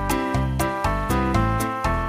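Upbeat background music with bass and a steady beat.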